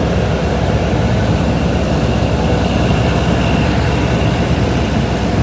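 Tugboat's diesel engines running steadily underway, a loud, even low drone.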